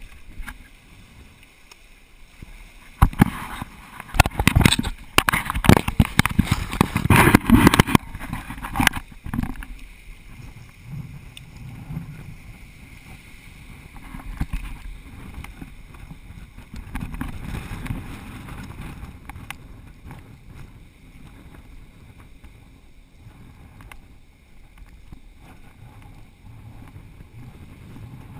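Footsteps crunching on loose stones and gravel, with wind on a body-worn camera's microphone. The crunching and rustling is loudest and roughest from about three to nine seconds in, then settles to a lower steady noise.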